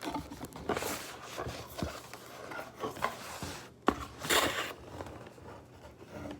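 Hands rummaging through a box of fidget toys: scattered scrapes, rubs and light knocks, with a sharp click about four seconds in and a short rustle just after.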